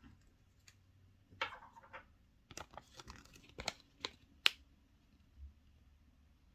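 Foil wrapper of a chocolate egg crinkling briefly, then a series of sharp plastic clicks and taps, the loudest near the end of the run, as a toy capsule and its parts are handled.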